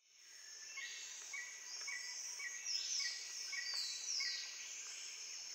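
Faint chorus of insects: a high, steady buzzing that swells and slides in pitch, fading in at the start, with a short chirp repeating a little under twice a second.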